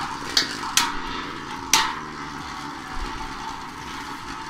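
Two Beyblade Burst tops spinning on a plastic sled, with a steady whir and sharp clacks as they hit each other three times in the first two seconds, the third hit the loudest.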